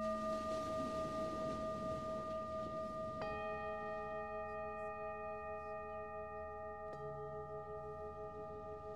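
Himalayan singing bowl ringing after a strike, with a second bowl of a different pitch struck about three seconds in; the two ring on together, their tones wavering in a slow pulse as they fade.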